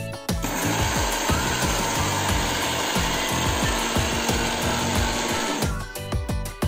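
Preethi Taurus mixer grinder running, grinding sugar into powder in its steel jar; the motor starts a moment in and stops sharply about a second before the end. Background music plays underneath.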